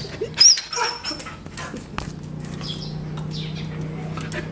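A pet dog gives a short, high whine about half a second in, amid scuffling and handling clicks as it plays close to the phone. A steady low hum sets in about two seconds in.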